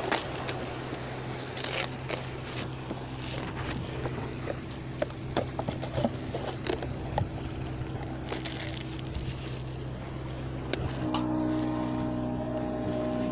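Plastic packaging of an instant noodle cup crinkling and crackling as hands tear off the wrap and peel the lid, over a steady low hum. Background music with held notes comes in near the end.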